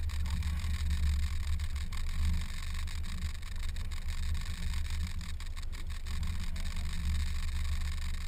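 Motorboat engine running steadily with a low, even hum, and a hiss of wind and water over it.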